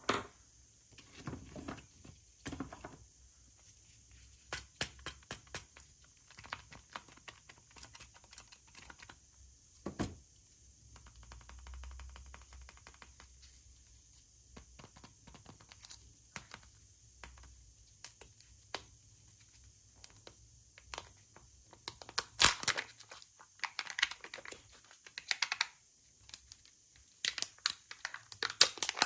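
Hands unwrapping and handling small toy packages: irregular clicks and taps with bursts of crinkling, tearing wrapping, busiest in the last third.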